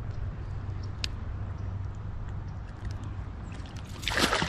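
Water gurgling and trickling around a small fishing boat over a steady low hum, then a brief splash about four seconds in.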